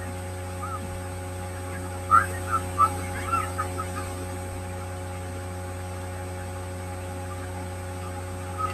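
Steady low electrical hum, a mains hum running under the recording, with a few faint short sounds about two to three and a half seconds in.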